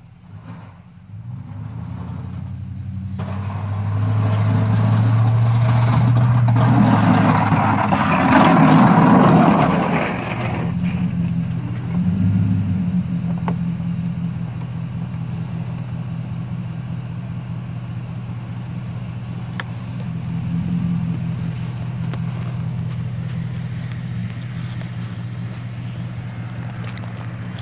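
Chevrolet Silverado pickup with a Meyer snowplow driving up, its engine and tyres growing louder as it pulls in close, loudest about eight to ten seconds in. The engine then settles into a steady idle.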